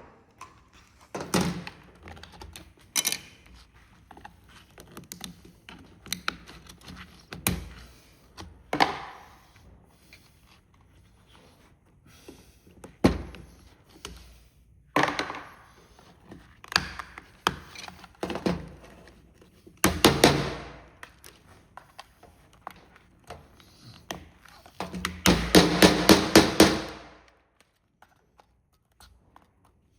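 Plastic remote control casing being forced apart: scattered knocks and cracking snaps of plastic. Near the end comes a quick run of about ten cracks over two seconds.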